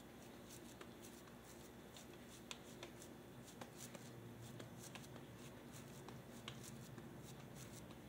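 Quiet kitchen handling noises: scattered light clicks and taps at an irregular pace over a low steady hum.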